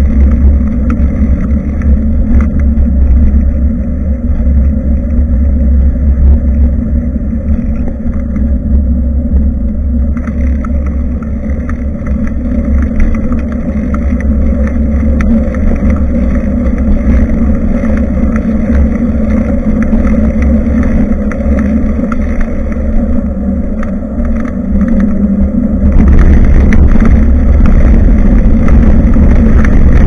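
Wind buffeting the microphone of a rear-facing action camera on a moving bicycle: a loud, steady low rumble that gets louder near the end.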